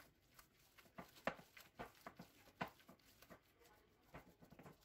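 Faint, irregular squishing of hands kneading a raw minced-beef and egg mixture in a glass bowl.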